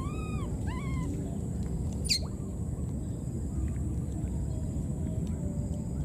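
Baby macaque giving two short rising-then-falling coo calls right at the start, then a single sharp, steeply falling squeak about two seconds in, over steady low background noise.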